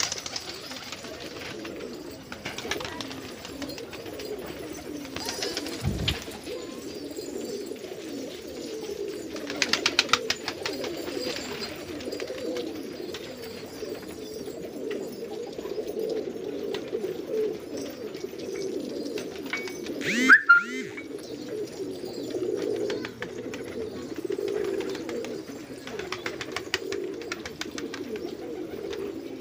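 A flock of domestic pigeons cooing continuously, many overlapping voices. There are brief bursts of rapid clicking, and a short loud sharp sound about two-thirds of the way through.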